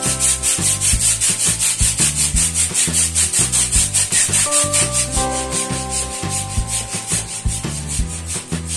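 Star foil balloon being pumped up through its valve: rapid, rhythmic hissing strokes of air, about five a second.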